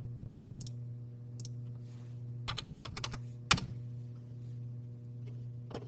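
Computer keyboard keystrokes: several separate key clicks spaced irregularly, the sharpest about three and a half seconds in, as a dimension value is typed in. A steady low electrical hum runs underneath.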